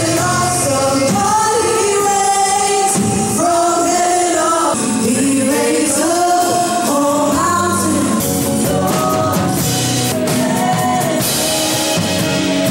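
Background music: a song with singing over drums and other instruments, with a gospel or choir feel.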